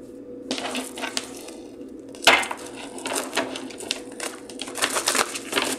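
Cards being shuffled and handled by hand: a dense run of quick papery clicks and rustles starting about half a second in, with one louder snap a little after two seconds.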